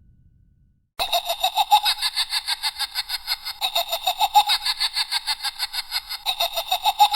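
A Halloween sound-effect cackling laugh that starts abruptly about a second in as a long, unbroken run of quick pulses, around seven a second. A low rumble fades out just before it.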